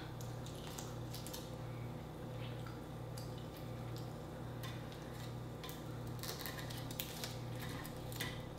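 Metal tongs clicking and scraping against a tabletop grill's wire grate while shrimp are turned. The light clicks are scattered, grow busier near the end, and sit over a steady low hum.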